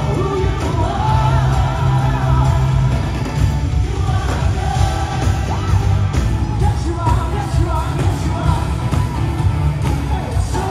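Live gospel band and singers performing a worship song through an arena PA system, with loud bass and reverberant vocals.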